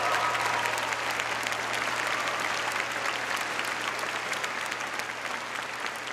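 A large audience applauding in a hall, a dense steady clatter of clapping that slowly dies down. The last held notes of music fade out just after the start.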